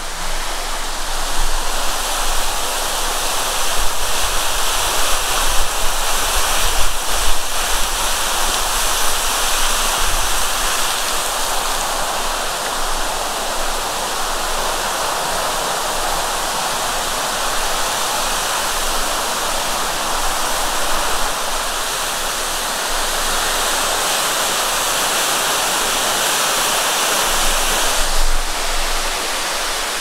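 Waterfall pouring down onto rocks and a pool close by: a loud, steady rush of falling water.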